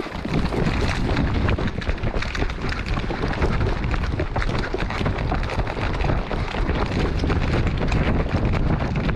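Wind buffeting a worn camera's microphone while the wearer runs, with quick footsteps on a dirt and gravel path.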